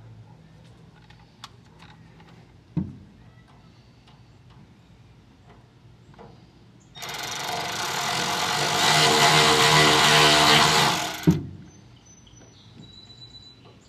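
A cordless power ratchet runs for about four seconds, tightening a hose clamp on a fuel hose, getting louder as it goes and stopping with a sharp click. Before it, a few light clicks and a single knock about three seconds in.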